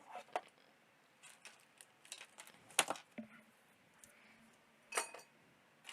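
Loose plastic keyboard keycaps clicking together as they are rummaged through by hand: a few scattered sharp clicks, the loudest just under three seconds in and again about five seconds in.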